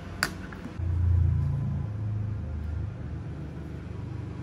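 A single sharp click, then a low rumble that swells about a second in and dies away over the next two seconds.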